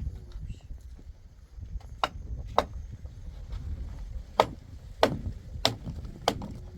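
Six sharp blows struck one after another at an even pace, about one every 0.6 s, starting about two seconds in, over a low steady rumble.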